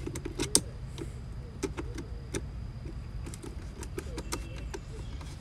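Flat-head screwdriver turning the worm screw of a steel hose clamp on a rubber air-intake boot: small irregular metal clicks and scrapes, the sharpest about half a second in, over a low steady background rumble.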